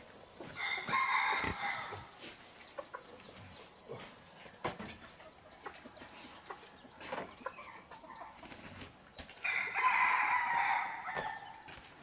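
A rooster crowing twice, once about half a second in and again near the end, each crow lasting about a second and a half, with scattered light knocks between.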